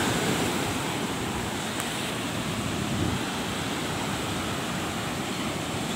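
Sea surf washing onto a sandy beach, a steady wash of breaking waves, with wind rumbling on the microphone.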